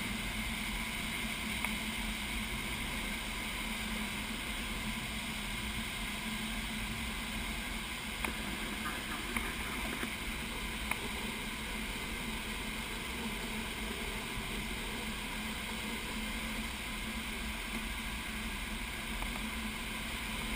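Steady rush of air over a glider's canopy and fuselage in flight, heard from inside the cockpit.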